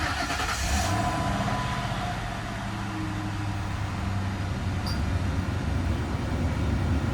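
2004 Lincoln Town Car's 4.6-litre V8 just started from cold and idling steadily, with a faint whine that fades away in the first couple of seconds.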